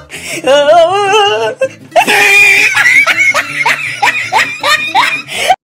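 Laughter over music, with a quick string of rising notes in the second half, cutting off suddenly near the end.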